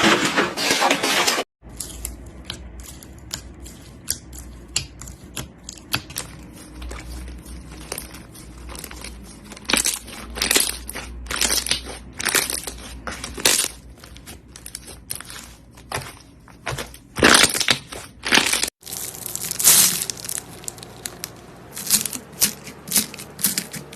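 Slime being poked and squeezed, giving irregular sharp crackles and pops that sometimes come in quick clusters. The sound breaks off twice, once shortly after the start and once near the end.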